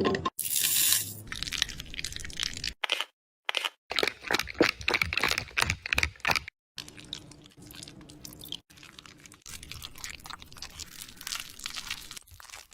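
Close-up crunching of crisp food, in short irregular clusters of crackles with brief silent gaps between them.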